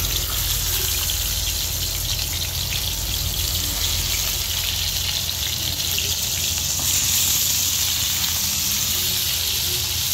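Fish pieces shallow-frying in oil in a frying pan, a steady sizzle that swells slightly about seven seconds in, over a low steady hum.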